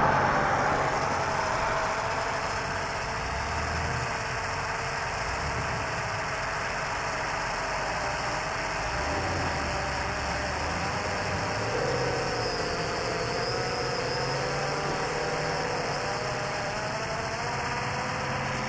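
Hexacopter's electric motors and propellers whining steadily, their pitch wavering up and down as the throttle changes, over a low rumble of wind.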